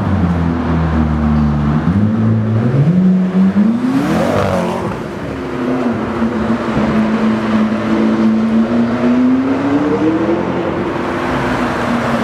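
McLaren 12C's twin-turbo V8 running loud on the street: its note climbs over about two seconds to a peak about four seconds in, drops back, then holds steady and rises slightly again near the end.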